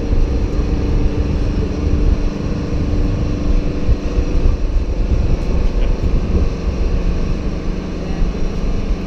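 Steady mechanical hum of the launch pad's erector machinery raising the Soyuz rocket toward vertical, a few held tones over an uneven low rumble.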